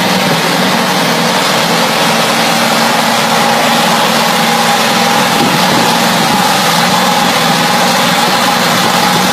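Scania truck's diesel engine running at a steady, unchanging speed, with a thin steady whine over the engine note.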